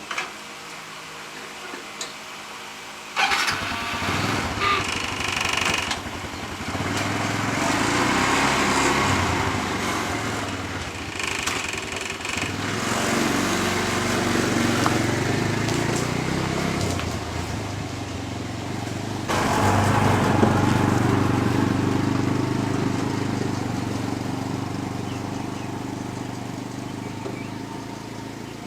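A small engine starts up suddenly about three seconds in and runs, its pitch and level rising and falling. It gets louder again about twenty seconds in, then slowly fades.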